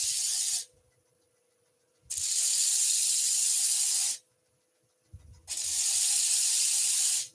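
The end face of a turned wooden garden tamper pressed against a large lathe-mounted sanding disc to take off the bulk and flatten it: a coarse abrasive hiss in three spells, the first ending about half a second in and the other two lasting about two seconds each, with near silence between as the wood is lifted off the disc.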